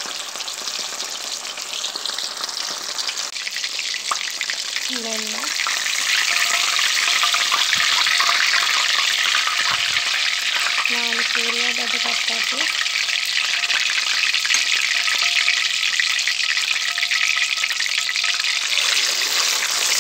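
Cornflour- and spice-coated fish fillet frying in hot oil in a pan: a dense, steady sizzle and crackle that grows louder about six seconds in.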